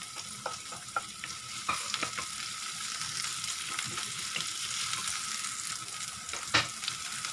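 Sliced onion and garlic sizzling in hot oil in a frying pan, stirred with a wooden spatula that scrapes and taps against the pan. A louder knock comes near the end.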